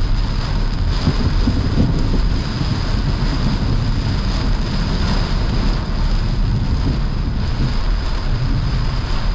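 Heavy rain hitting a moving car's windshield and roof, with tyres running on the flooded road, heard from inside the car as a steady, loud wash of noise.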